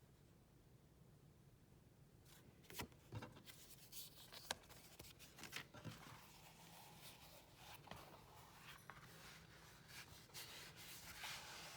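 Faint rustling, rubbing and light clicks from packaging being handled and opened by hand. It is nearly silent for the first two seconds.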